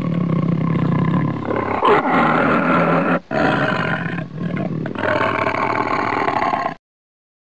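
Tiger roaring in a run of long roars broken by brief gaps. It is a downloaded tiger recording given digital processing, and it cuts off abruptly near the end.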